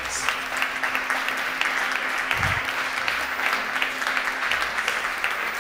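Audience clapping steadily, a dense patter of many hands, with a brief low thump near the middle.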